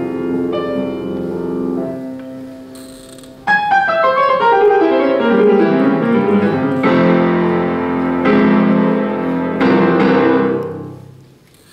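Grand piano playing classical music. A quiet passage is broken about three seconds in by a sudden loud chord, which leads into falling runs and a few more loud chords. The last chord rings and dies away near the end, closing the piece.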